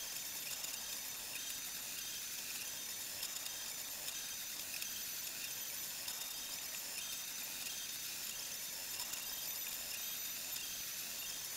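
Monoprice Select Mini 3D printer running a print: its stepper motors whine in short high tones that keep shifting pitch, over a steady hiss.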